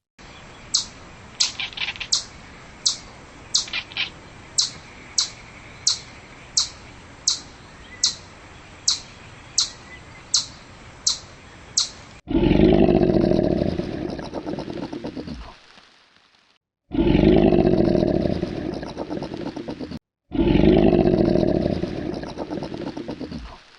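A bird's short high chirp repeated steadily, about one and a half a second, for roughly twelve seconds; then a loud, deep animal call lasting about three seconds, played three times with short gaps between.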